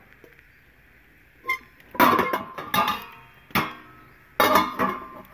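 Metal serving dishes and trays knocking and clanking against each other as they are handled, about six sharp, irregularly spaced knocks with a ringing metallic tail, beginning after a quiet second and a half.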